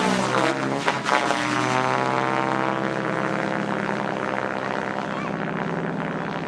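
Electric 12S MSH Protos Max Leggero RC helicopter in flight, its rotor and motor making a pitched whirring hum with shifting pitch. It surges loudly a couple of times in the first second, then runs steadier and slowly fades.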